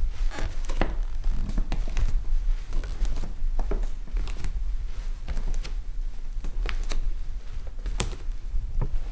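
Bare feet walking on a floor: a continuous run of soft footfalls at an uneven walking pace, over a steady low hum.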